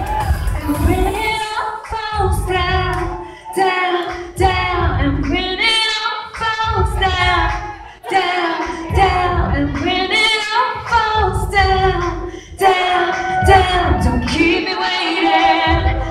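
Female pop vocals sung live, with a wavering held voice, over backing music with a heavy pulsing bass beat.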